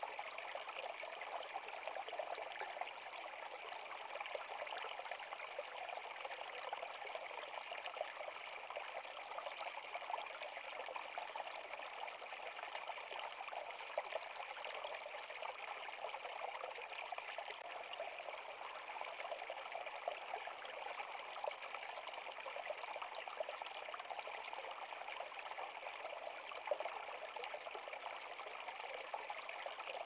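Water pouring steadily from a plastic pipe onto rocks and into a shallow stony stream, a continuous splashing trickle.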